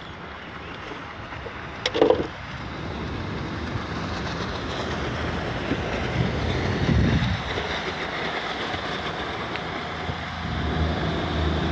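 Steady rushing and rumbling noise of wind and water around a small fishing boat, with one sharp knock about two seconds in. A low steady hum, like a motor, comes in near the end.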